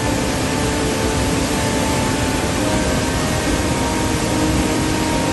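Steady, loud roar of turbulent white water released from a dam spillway, surging and churning in big breaking waves.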